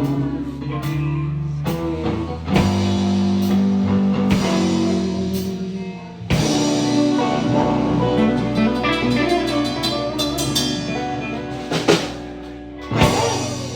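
Live band playing the instrumental end of a rock-blues song, electric guitar over a drum kit, closing on a loud final hit near the end.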